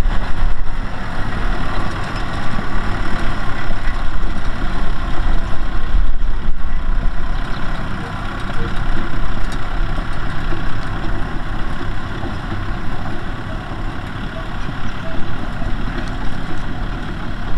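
Kubota M6040SU tractor's diesel engine running steadily, a little quieter from about halfway through.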